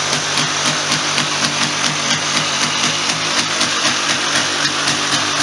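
1996 Polaris Sportsman 400's single-cylinder two-stroke engine idling steadily after a top-end rebuild, running well.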